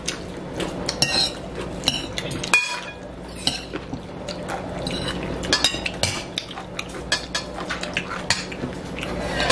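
Metal forks and spoons clinking and scraping against ceramic bowls as two people eat: many irregular light clicks and scrapes.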